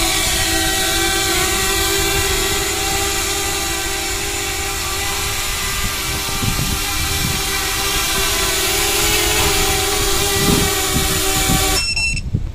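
7-inch FPV quadcopter's brushless motors whining steadily in flight, several tones together, then cutting off suddenly near the end as the motors stop.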